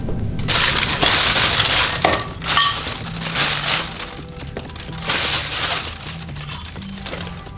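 Plastic bag crinkling and rustling in irregular spells as parts are handled and unwrapped from it, loudest in the first two seconds, over background music.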